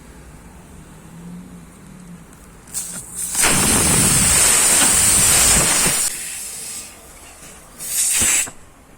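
Compressed air hissing in two bursts: a long one of about three seconds starting about three seconds in, then a short one near the end.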